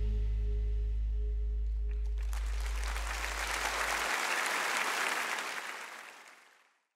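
A band's last chord rings out, with a low sustained note and a higher tone fading away; about two seconds in, an audience breaks into applause, which swells and then fades out near the end.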